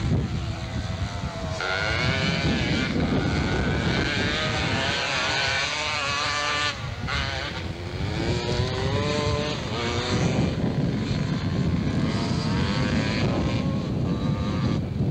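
250cc racing motorcycle engines revving hard, the pitch climbing and dropping over and over as the bikes accelerate, shift and pass.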